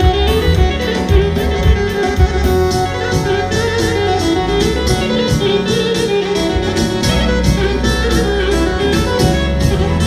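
Albanian wedding band playing an instrumental passage between sung verses: melody instruments over a steady, driving beat.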